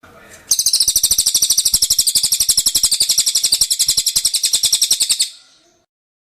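A cililin songbird singing one long, rapid, even trill of high notes, about fifteen notes a second, starting about half a second in and stopping abruptly about five seconds in.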